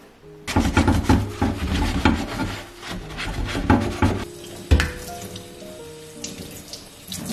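A brush scrubbing a soapy metal stove burner grate in a sink, in quick rubbing strokes for about four seconds, then a single sharp knock. Background music plays throughout.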